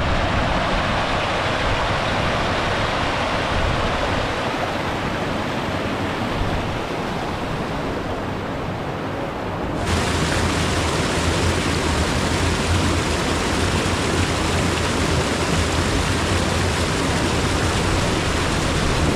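Steady rushing of a mountain stream, an even hiss of flowing water. About ten seconds in it changes abruptly to a brighter, fuller rush.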